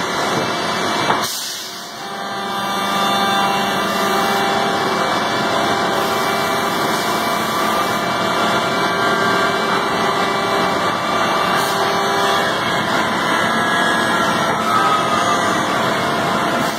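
Pade Velox five-axis CNC machining center cutting wood: steady machine noise with several whining tones from the spindle and cutter. There is a click about a second in and a brief drop in level, and one tone glides slowly down near the end.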